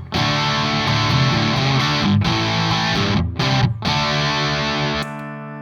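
Electric guitar played through a Radial Tonebone Trimode Classic Distortion pedal: distorted rhythm chords with a few short breaks, ending on a quieter chord left ringing.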